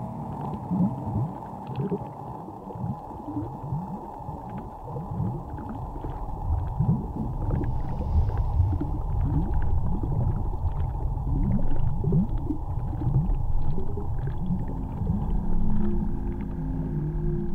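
Many short low calls, each sweeping upward in pitch, a couple each second over a low rumble, with scattered faint clicks; they grow denser and louder from about six seconds in.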